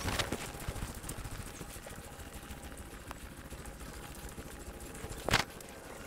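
Quiet outdoor background noise, with a single short, sharp sound about five seconds in.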